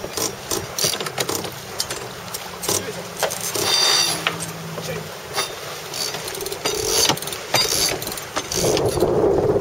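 Sailboat deck gear clicking and rattling: irregular sharp clicks typical of a winch ratchet being worked. Near the end, wind starts buffeting the microphone.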